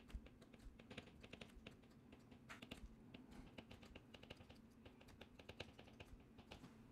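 Very faint, irregular taps and clicks of a stylus writing on a tablet, some coming in quick clusters.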